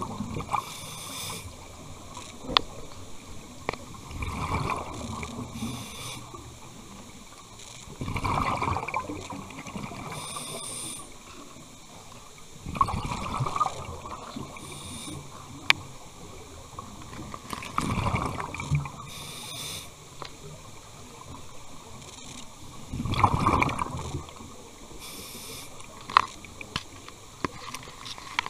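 Scuba diver breathing through a regulator underwater: a rush of exhaled bubbles about every five seconds, with a fainter hiss between the breaths and a few sharp clicks.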